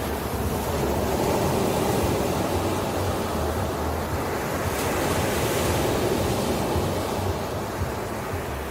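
Ocean waves breaking and washing on the shore, a steady rushing surf that swells about a second in and eases near the end, with low wind rumble on the microphone.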